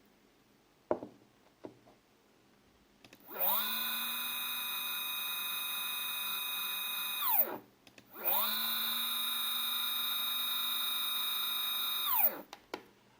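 Two stepper motors wired in parallel on one driver make two moves. Each starts with a whine rising in pitch as they accelerate, holds a steady high-pitched multi-tone whine at full speed, then falls in pitch and swells louder as they decelerate to a stop. A few small clicks come before and after the moves.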